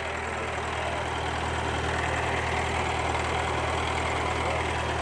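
A crane's diesel engine running steadily under load as it hoists an overturned tractor on lifting straps, its low hum slowly growing louder.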